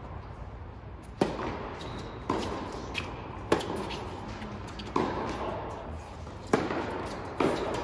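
Tennis ball struck by rackets and bouncing in a rally: about seven sharp pops, one every second or so, each echoing in a large indoor hall.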